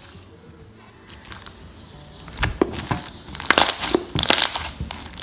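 Thick, glossy slime with foam balls being poked and squeezed. After about two quiet seconds it gives a run of sharp, crackly bubble pops and crunches, thickest in the second half. Faint music underneath.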